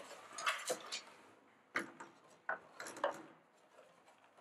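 Hard plastic clicks and knocks from an engine cover and air-intake duct being handled and pressed into place: about five separate sharp knocks in the first three seconds, then quieter.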